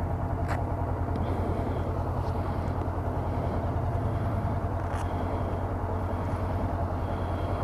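Honda CB500X's parallel-twin engine idling steadily while the motorcycle stands still, with a faint click about half a second in and another around five seconds.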